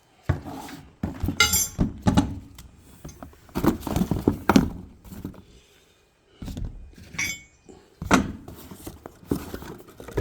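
Steel parts of a leaf helper spring kit (brackets, U-bolts, hardware) being handled and set down: irregular knocks and clinks, with short pauses in between.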